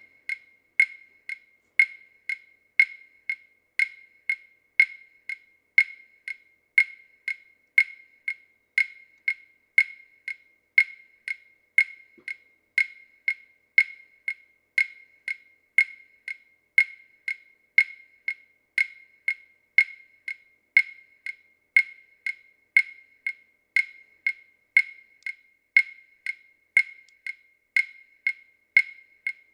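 Steady, high-pitched ticking: short, sharp clicks about two a second in an even beat, some clicks louder than others.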